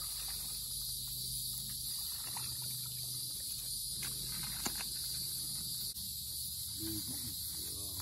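Steady high-pitched insect chorus, with a few faint clicks.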